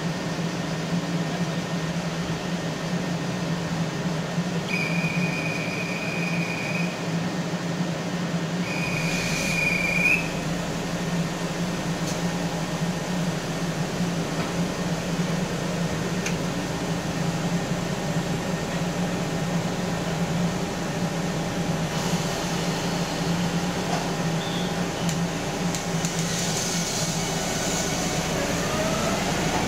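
Steady hum of a stopped JR Shikoku 8000-series electric express train, broken by two long high electronic beeps about five and nine seconds in. Near the end, rising whines start as the VVVF inverter drive powers up and the train begins to pull away.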